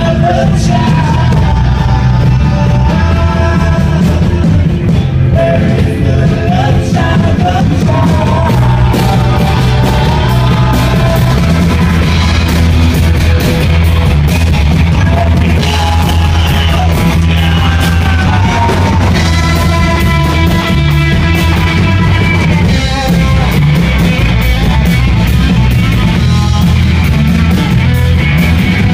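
Loud live rock music: a band playing with a singer's voice over heavy bass and drums.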